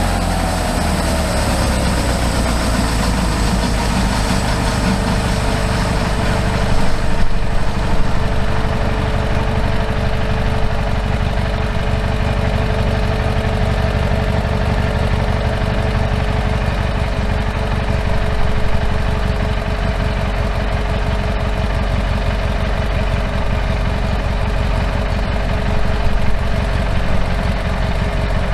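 Engine of a homemade band sawmill running steadily. Its pitch drops over the first few seconds, then holds level.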